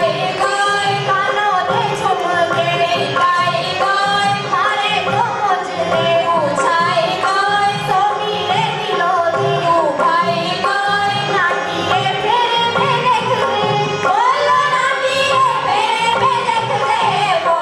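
Himachali folk dance music: a sung melody with a wavering, ornamented line over a quick, steady, repeating drum beat.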